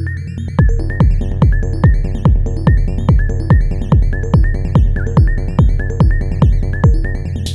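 Elektron Model:Cycles groovebox playing a hypnotic psy-techno pattern: a droning bass and a high repeating synth sequence, with a steady kick drum that comes in about half a second in, beats a little over twice a second, and drops out near the end.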